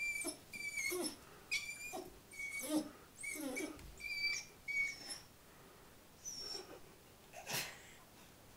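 Puppy whimpering in pain: a run of short, high-pitched whines, about two a second, that stops about five seconds in. A single sharp knock comes near the end.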